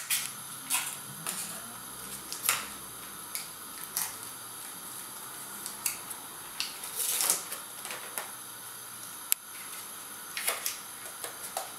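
Butter wrapper crinkling and crackling in irregular clicks as a block of butter is unwrapped by hand.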